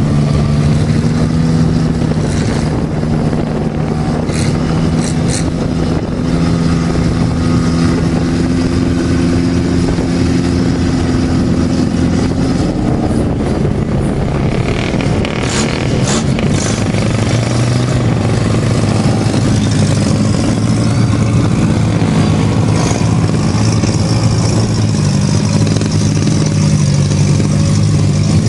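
Engines of lifted four-wheel-drive mud trucks running steadily as they drive through mud and water. The engine note shifts about halfway through and again in the last third, and a few brief sharp sounds are heard.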